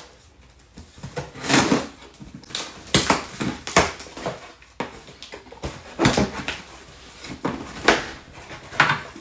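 A cardboard shipping box being cut and pulled open by hand: packing tape slit and torn, and the cardboard flaps scraping as they are pried apart, in several short ripping and scraping sweeps.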